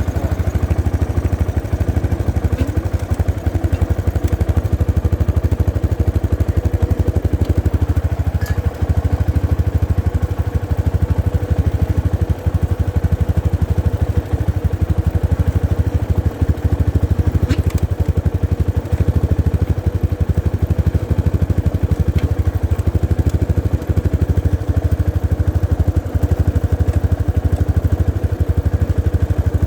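Motorcycle engine running steadily with the rear wheel turning while the rear brake is held on by foot, the rear brake pads making a noise against the disc. The pads have not bedded in after a month, which the owner puts down to the pads having soaked up rain water.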